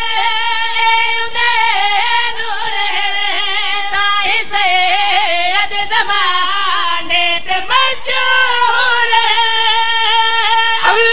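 A man singing a qasida, a devotional Shia recitation, into a microphone, drawing out long, ornamented notes whose pitch wavers and slides.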